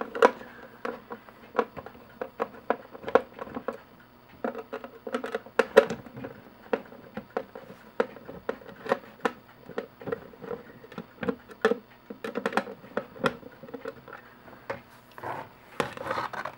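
Screws being backed out of a hard plastic diecast-model display platform while it is handled: a string of irregular small clicks, taps and scrapes of plastic.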